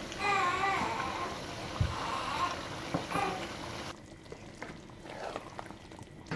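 Steady hiss of stovetop cooking over a lit gas burner where a charcoal briquette is heating, with a faint voice briefly near the start. About four seconds in the hiss drops to a quieter background with light clicks, and a sharp knock comes at the very end.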